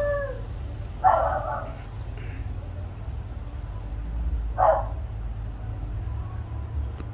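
Animal calls: a short cry that falls slightly in pitch at the start, then two short, harsh calls about a second and four and a half seconds in, over a steady low hum.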